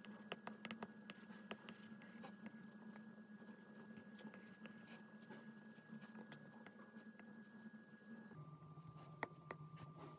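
Apple Pencil tip tapping and sliding on an iPad's glass screen while writing, a string of faint, irregular clicks over a low steady hum.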